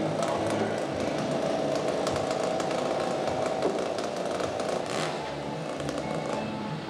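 Chainsaw running steadily, cutting into a log.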